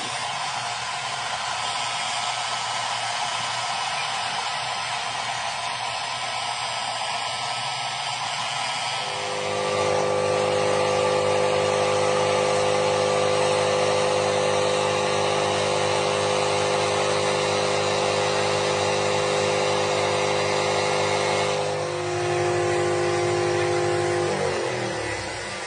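Angle grinder with an abrasive disc running against a chrome hydraulic cylinder rod, a steady hiss of grinding. About a third of the way in a steady motor whine joins, shifts pitch near the end, then winds down with a falling pitch.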